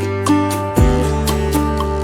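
Background music: plucked acoustic guitar with sustained bass notes, a new note or chord struck about every half second to second.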